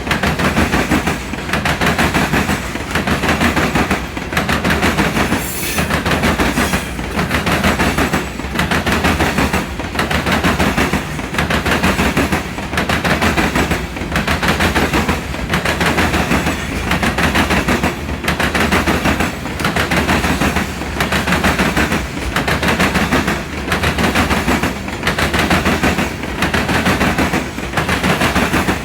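Freight cars of a CSX train rolling past, a loud rapid clatter of wheels and cars. It comes in a regular rhythm that eases briefly about every second and a half, car after car.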